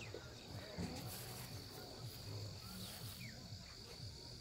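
Steady, high-pitched chirring of insects in the field, holding one thin tone throughout.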